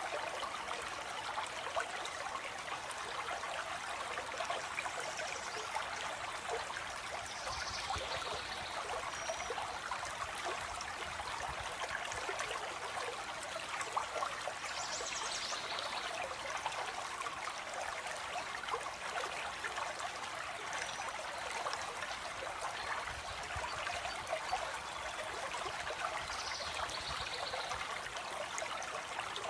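Stream of water flowing and trickling steadily, with faint high bird calls three times.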